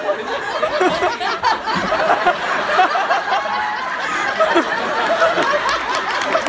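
Audience laughing and chattering, many voices overlapping.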